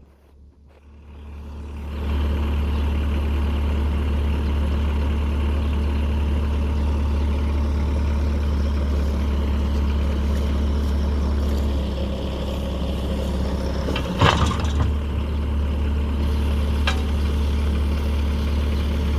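Bobcat 773 skid steer's turbo diesel engine running steadily under a backhoe attachment, coming up from a quiet dip over the first two seconds. About fourteen seconds in there is a short sharp clatter, and a smaller click a few seconds later.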